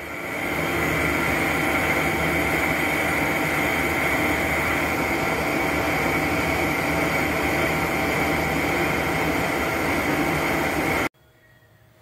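Large metal lathe running with a DC motor housing spinning in its chuck while a boring bar machines it: a steady mechanical din with a high whine. It builds up over the first second and cuts off suddenly near the end.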